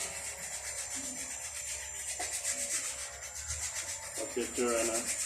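Repeated hand rubbing strokes on a disc brake caliper while it is being greased.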